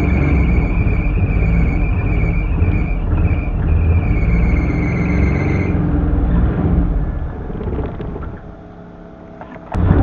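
Suzuki Mehran's small three-cylinder carbureted engine running unevenly just after a hard cold start, with a steady high-pitched squeal for the first half; the engine then dies away and stalls. A sudden loud noise starts just before the end.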